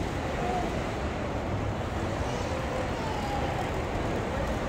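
Airport terminal ambience: a steady low rumble of the hall, with faint distant voices now and then.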